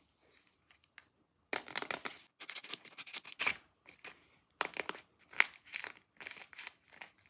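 A handmade paper blind bag being handled and opened: bursts of paper crinkling and tearing that start about a second and a half in and come in short clusters.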